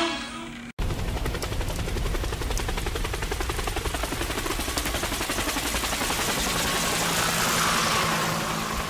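Helicopter rotor chop: a steady, rapid beating of the blades over engine noise, cutting in abruptly under a second in.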